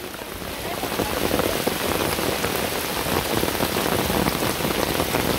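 Heavy rain pouring down, a dense, steady patter of countless drops that swells over the first second and then holds.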